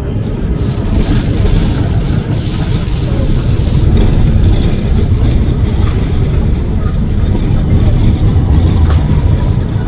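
City street traffic with a heavy vehicle rumbling close by, and a loud hiss from about half a second to four seconds in.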